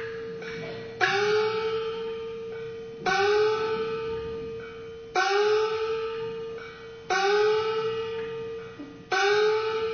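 Kunqu opera percussion: a small gong struck five times, about every two seconds, each stroke ringing on with its pitch bending up just after the hit.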